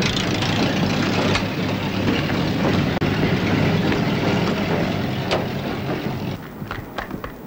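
Military truck engine running with a dense noisy rumble over a steady low hum, dropping away about six seconds in; then quick sharp taps of running footsteps on pavement.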